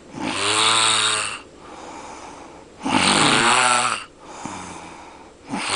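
A man snoring very loudly: three long, buzzing, horn-like snores about three seconds apart, with quieter breaths between them.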